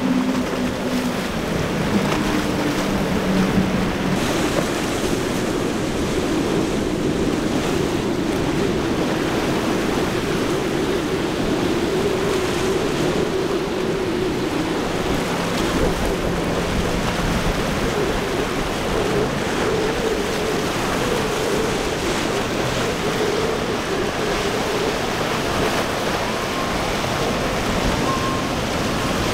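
Wind on the microphone and waves washing, with the drone of outboard engines on speedboats running past at speed. A steady engine tone is clearest in the first few seconds, then fades into the wind and water noise, where a wavering engine drone comes and goes.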